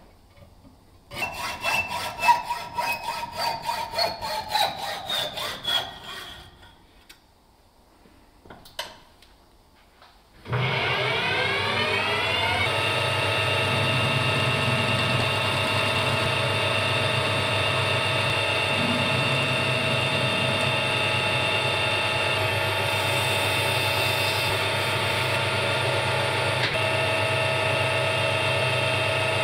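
Hacksaw strokes cutting a metal rod held in a bench vise, with a ringing tone that slowly falls in pitch. After a short pause a metal lathe starts up, its whine rising as it spins up, and then runs steadily.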